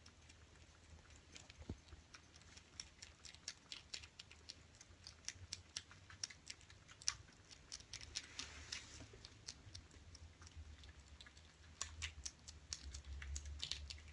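Kittens eating from food bowls: faint, quick, irregular clicking of chewing and licking, over a low steady hum.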